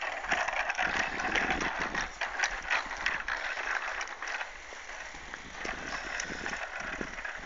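Child's bicycle with stabiliser wheels rolling along a concrete path, rattling with many small clicks. It gets quieter after about four seconds as the bike pulls away.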